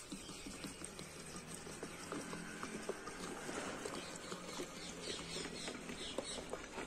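Petrol being poured from a bottle into a motorcycle fuel tank, faint trickling and patter.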